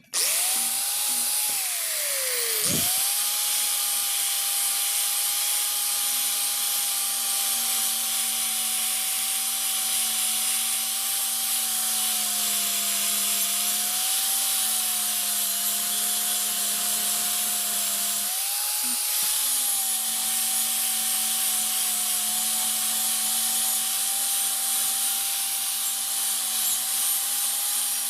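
Handheld electric abrasive power tool starting up and then grinding or sanding on a boat propeller: a steady motor whine over a rough, hissing scrape, the whine dipping sharply once under load near the start and quickly recovering.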